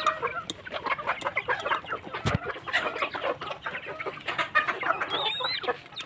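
A flock of layer hens clucking continuously while they peck at scattered grain, with a single thump about two seconds in and a short, high wavering call near the end.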